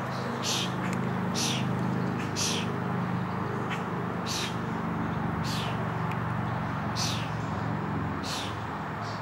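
Steady low hum of motor traffic, with short high bird chirps repeating every second or two.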